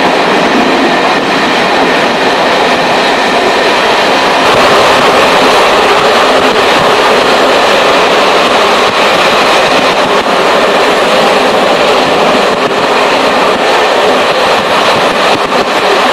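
Moving local passenger train heard from inside the carriage: the steady rumble and rattle of the wheels running on the track, with occasional faint clicks.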